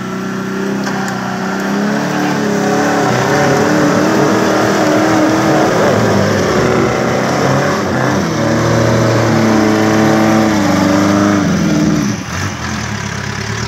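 Engine of a small modified off-road 4x4 revving hard under load as it claws up out of a mud hole, the revs wavering up and down, easing off a little near the end.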